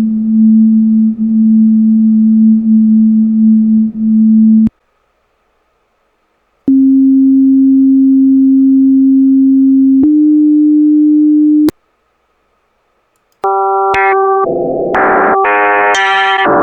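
AI-generated electronic tones: a steady low tone for about five seconds, then silence. A second steady tone comes in and steps up a little in pitch before cutting off. Near the end, several tones sound together as synth-like chords that change every half second or so.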